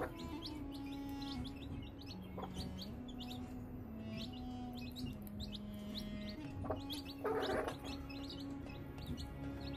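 Chicks peeping continually, many short high peeps every second, while a hen gives a brief cluck about seven seconds in.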